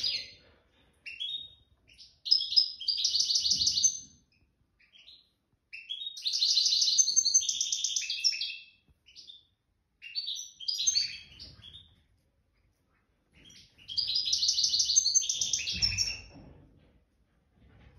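A songbird singing in high, rapid phrases of one to three seconds each, about five of them, with short pauses between.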